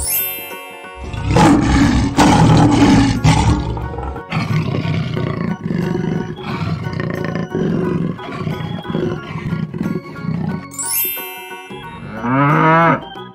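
Cartoon animal sound effects over a children's music track: lions roaring loudly about a second in, then big cats roaring and growling for several seconds, and a single low cow moo near the end.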